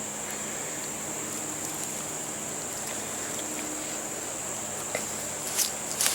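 Steady high-pitched drone of insects in summer woods, with a couple of brief rustles in the brush near the end.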